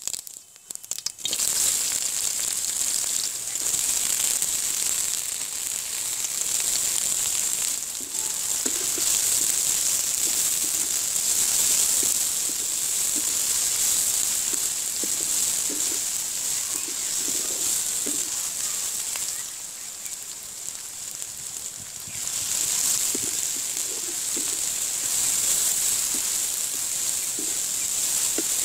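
Hot oil sizzling steadily in a large aluminium kadai as sliced onion, green chillies and garlic fry, starting about a second in, with light knocks and scrapes of a wooden spatula stirring them.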